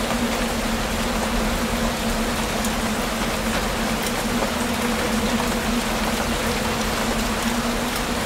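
Steady rain falling through a tree canopy, with scattered drips ticking, over a low steady hum.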